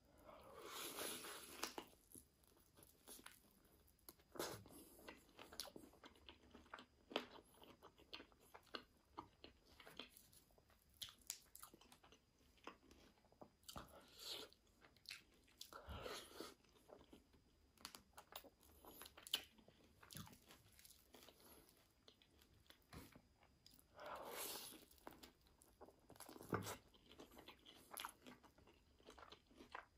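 Close-miked eating of breaded chicken and grilled potatoes: quiet crunchy bites and chewing, with many small clicks of the mouth and three louder bites, about a second in, around halfway and a few seconds before the end.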